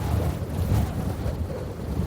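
A low, steady rumbling noise from a cartoon sound-effect recording.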